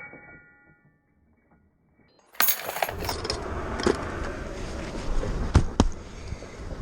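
After a fade and a brief silence, an abrupt start of metallic clinking and jingling, followed by a few sharp clicks over steady background noise.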